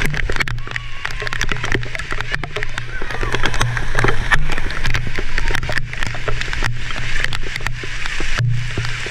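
Heavy rain pouring down on a paved court, with many raindrops tapping sharply on the camera itself. A low drone comes and goes underneath.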